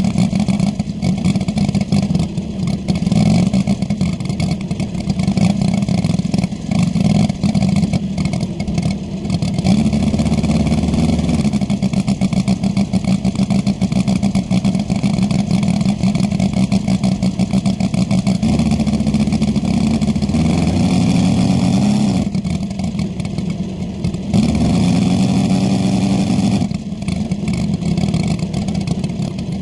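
Radial engine of a Muscle Bipe RC model biplane running on the ground with its propeller spinning, for a final pre-flight engine check. It runs steadily, with the throttle changed several times: about ten seconds in, again from about nineteen to twenty-two seconds, and from about twenty-four to twenty-seven seconds.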